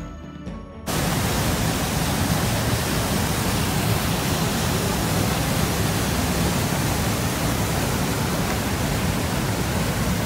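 Sheep River Falls: the waterfall's loud, steady roar of rushing water, cutting in abruptly about a second in as a few notes of music stop.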